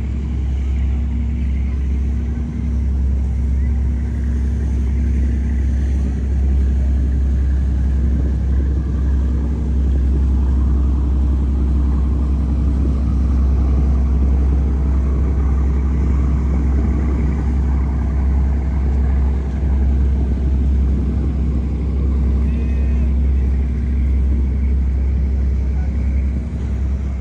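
Outdoor street ambience dominated by a steady low rumble of road traffic, with faint voices now and then.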